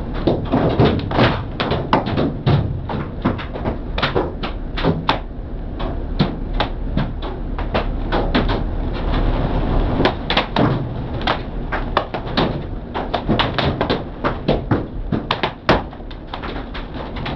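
Hailstones striking the car's roof and windshield, heard from inside the car: irregular sharp knocks, several a second, over a haze of rain and a steady low rumble.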